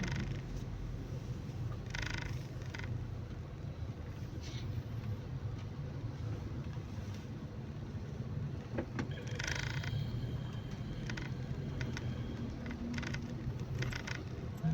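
Car driving, a steady low engine and road hum, with brief bursts of hiss about two seconds in and again around ten seconds in.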